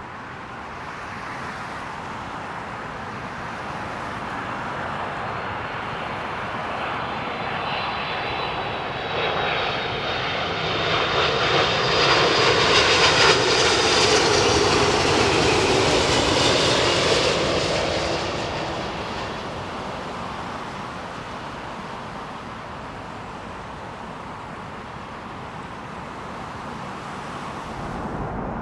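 Delta Air Lines Airbus A330-200 twin-jet passing low on final approach to land. The jet noise builds, is loudest about halfway through with a whine that falls slightly in pitch, then fades away.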